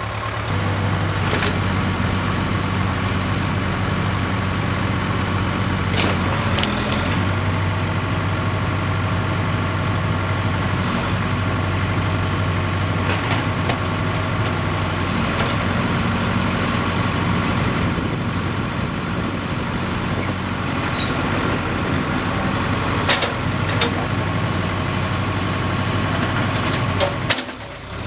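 Case 580K backhoe loader's four-cylinder diesel engine running steadily at idle, with a few sharp clicks along the way.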